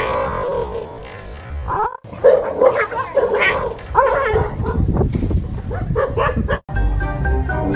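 A dog barking and yelping in a quick run of short, sharp calls, in alarm at a fake tiger dragged toward it. Music comes in near the end.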